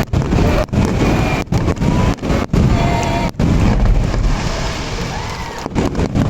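Fireworks display: a fast, near-continuous barrage of booming shell bursts, with thin whistling tones gliding through it. The barrage eases for a moment about four to five seconds in, then picks up again near the end.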